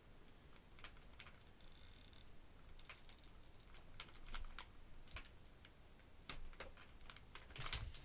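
Faint, irregular light clicks and taps from hard objects being handled, becoming more frequent near the end.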